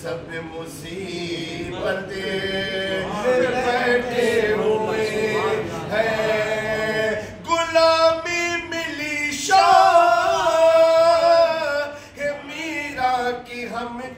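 A man singing a Sufi kalaam, a devotional Urdu poem, in long held notes that waver and glide, with a short break in the voice near the end.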